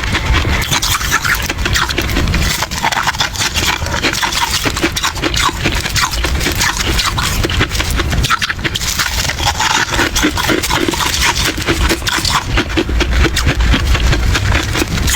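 Close-miked crunching and chewing of soft freezer frost, a dense run of crackles and crunches that never breaks.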